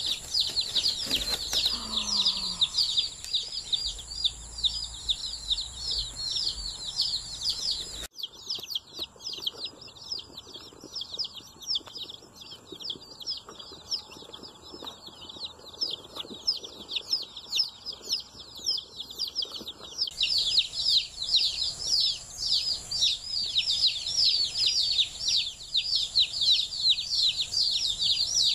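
Many newly arrived baby chicks peeping at once: a dense, continuous chorus of rapid, high, downward-sliding peeps, quieter for a stretch in the middle.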